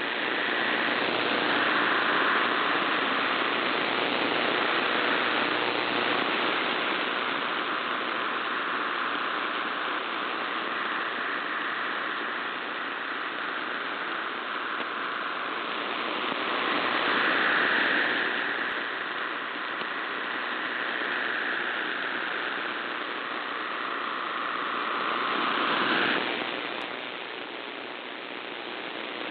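MT63-1000 digital text signal received over shortwave AM: a dense, even warble spread over a wide band, heard on top of steady radio static. The signal swells and fades with propagation, and about 26 seconds in it cuts off, leaving only the static hiss as the transmission ends before a change of mode.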